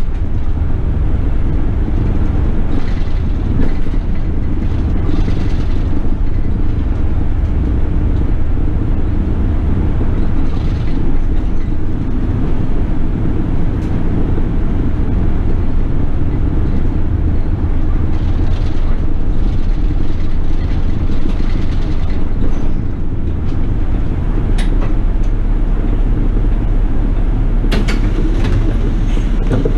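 Toei city bus on the move, heard from inside the cabin: a steady low engine and road rumble, with a few sharp clicks near the end.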